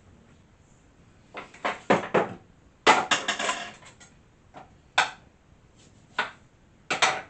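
A chicken seasoning container being handled and shaken over chicken drumsticks in a roasting tray: a few clicks, a short rattling run of strikes about three seconds in, then single taps and knocks.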